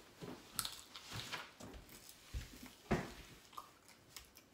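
Quiet scattered clicks, knocks and handling noises at a dining table as someone eats and a person gets up from the table, with one sharper knock about three seconds in.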